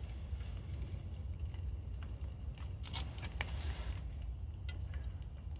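Stove burning with a steady low rumble under a hot pan, with scattered light clicks and scrapes of a utensil on the stainless steel mess-kit pan and a brief sizzle about three seconds in.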